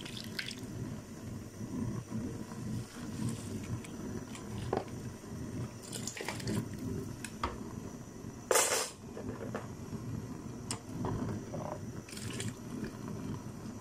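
Drained raw rice being tipped from a plastic colander into a pot of boiling water, with splashing and bubbling water. Scattered light knocks of the colander against the pot, and one louder sharp clatter about eight and a half seconds in.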